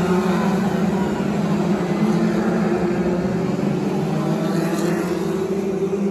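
A pack of BriSCA F2 stock cars racing, their engines running hard together in a loud, steady drone with slightly wavering pitch.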